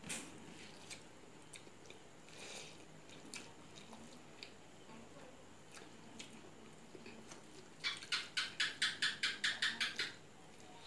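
Close-miked eating by hand: faint scattered clicks as fingers work rice on a steel plate, then about two seconds of rapid crisp crunching, roughly six a second, near the end.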